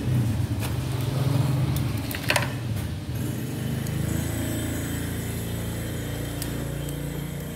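A low, steady motor hum, with a few light clicks, one clearer about two seconds in.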